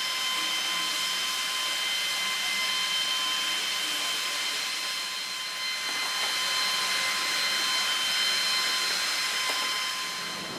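Jet aircraft turbine running steadily: a high whine of several steady tones over a hiss, with little low rumble.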